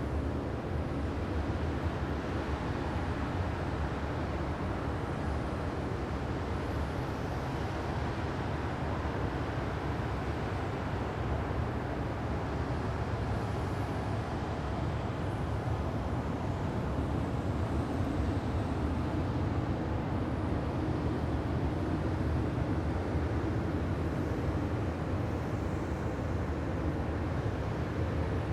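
Sci-fi alien-planet wind ambience: a steady, deep wind noise with a fainter airy hiss above it, unchanging throughout.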